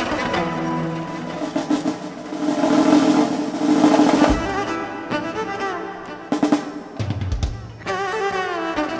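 Live instrumental fusion music: a drum roll swells to a loud peak about four seconds in and breaks off on a deep drum hit. Scattered drum strikes and low thuds follow, and the violin melody comes back in near the end.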